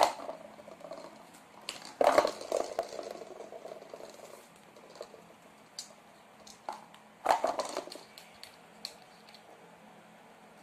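Kittens' paws and a hollow plastic ball knocking against a plastic basket: scattered light clicks and taps, with louder clatters at the start, about two seconds in and about seven seconds in.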